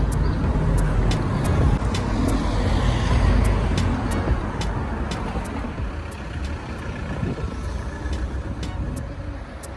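Road traffic rumbling past on a town street, loudest in the first few seconds and fading away after about six seconds, with background music and a regular ticking beat underneath.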